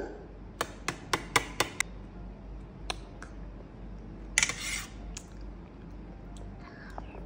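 A child's metal spoon clinking and scraping against a stainless steel divided food tray: about six quick clinks in the first two seconds, then a few single ones. About halfway through comes a short slurp as she sucks food off the spoon.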